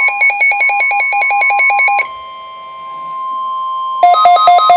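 NOAA Weather Radio alert tones: a steady weather alert tone with rapid electronic beeping over it, the beeps alternating between two pitches. The beeping stops about two seconds in, leaving quieter steady tones, then starts again at a different pair of pitches near the end. These tones mark the start of a new warning broadcast.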